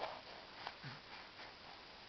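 A near-quiet pause in a baby's crying, with only a few faint soft clicks and small sounds.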